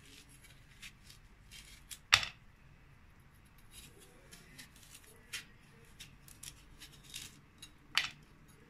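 Kitchen knife scraping the stringy pulp and seeds out of a slice of squash, in irregular short scrapes and clicks. Two louder clicks of the blade come about two seconds in and near the end, the second as the blade meets the ceramic plate.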